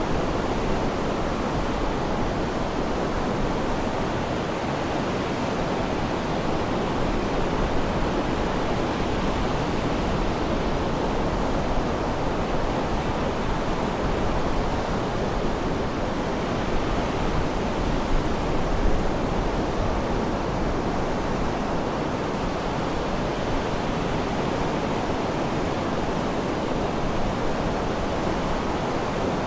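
Sea surf making a steady, even rushing noise, with no distinct wave crashes and no birdsong standing out.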